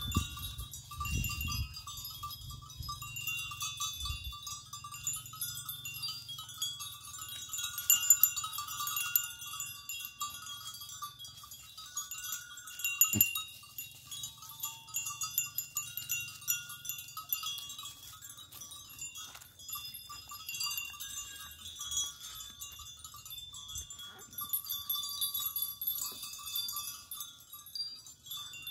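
A herd of goats grazing, with occasional bleats over a steady, flickering high-pitched chirping and tinkling.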